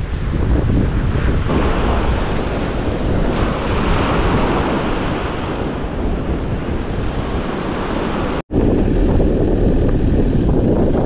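Waves breaking on a beach, with wind buffeting the microphone. The sound cuts out for an instant about eight and a half seconds in.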